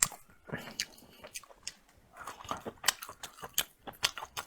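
Close-miked eating: wet chewing and smacking with crisp clicks from the mouth, several every second.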